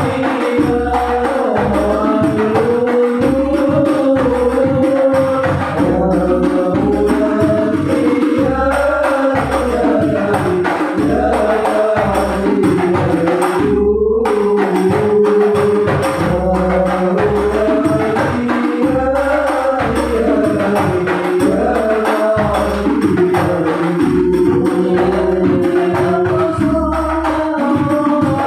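Sholawat devotional singing over a steady beat of hand-struck frame drums (rebana).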